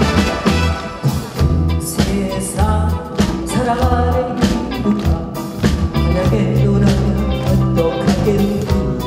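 A woman singing a Korean trot song with a live band of drums, keyboard, guitar and saxophones.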